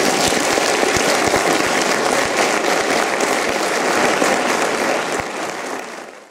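Audience applauding at the end of a lecture: steady, dense clapping that begins to fade in the last second.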